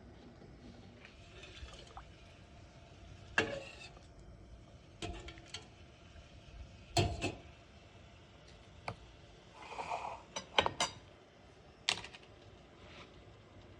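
Utensils clinking and knocking against a bowl while noodles are eaten: a handful of separate sharp clicks a second or two apart, with a quick cluster of them near the end.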